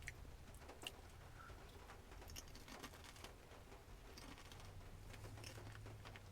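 Near silence in a small room: a faint low hum with a few scattered faint clicks and ticks.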